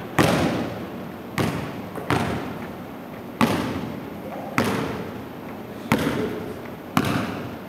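Basketball bouncing on a hardwood gym floor: about seven hard bounces, a second or so apart, each followed by a long echo in the large brick-walled gym.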